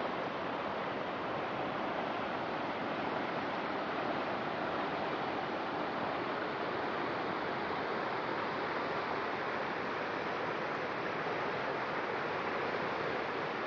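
Flash-flood river water rushing steadily, an even, continuous hiss of fast-flowing water.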